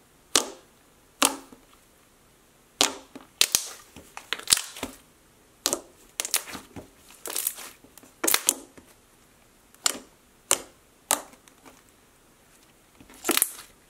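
Thick pink cream cheese slime being squished, stretched and poked by hand, giving sharp, irregular pops and clicks, roughly one a second and sometimes in quick clusters.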